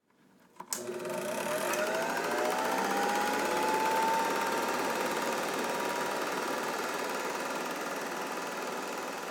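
Film projector switched on with a click, its motor whine rising in pitch as it comes up to speed over a few seconds, then running steadily with the rapid clatter of the film mechanism.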